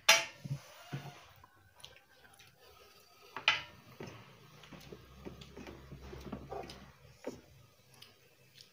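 Close eating sounds from people eating by hand: chewing and mouth noises with scattered sharp clicks. The loudest click comes right at the start and another about three and a half seconds in.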